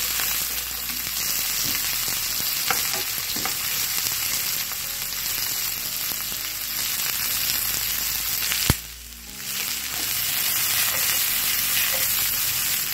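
Sliced onions, carrots and sweet and scotch bonnet peppers sizzling steadily in hot oil in a frying pan, being lightly sautéed to draw out their flavour. A few light clicks come as the vegetables are stirred with tongs. About nine seconds in, a sharp click is followed by the sizzle dropping away for under a second.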